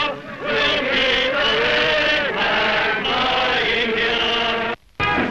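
Many voices singing together in long held notes, cutting off abruptly near the end, with band music starting just after.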